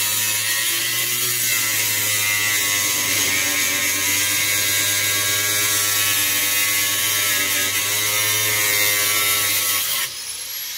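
Angle grinder running steadily as its disc grinds into the sheet-metal floor pan of a stripped car, dropping off abruptly near the end.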